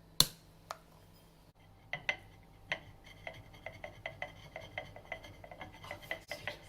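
A utensil clinking against a bowl: a sharp clink near the start, a few separate knocks, then a steady run of ringing clinks at about four strokes a second, as a mixture is stirred or whisked.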